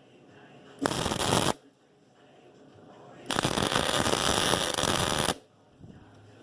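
Hobart wire-feed welder arcing in crackling bursts: a short weld about a second in, then a longer run of about two seconds from about three seconds in, welding teeth onto a bucket tooth bar.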